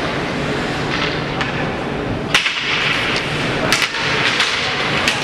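Ice hockey game heard from the stands: a steady, noisy rink background with several sharp knocks of sticks and puck, the first about two seconds in and a quick pair near the middle.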